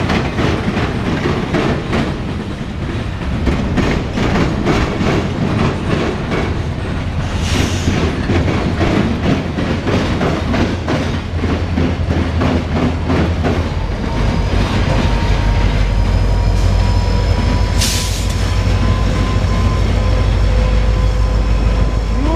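Freight cars of a CSX local train rolling past, wheels clicking rhythmically over the rail joints. About 14 seconds in, a deep, steady diesel locomotive rumble with a steady whine takes over as the train, shoving backwards, brings its locomotive by last.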